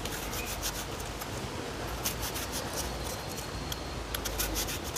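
Kitchen knife cutting into a whole raw onion held in the hand, a quick run of short crisp crunches of the blade through the layers, over a low steady rumble.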